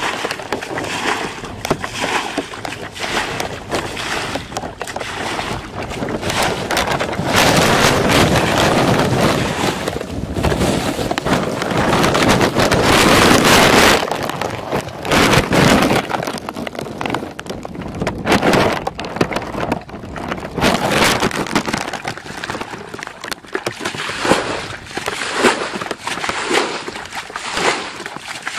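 Muddy water sloshing and splashing as a plastic basin scoops it up and throws it out, bailing a ditch by hand; near the end the scoops come about once a second.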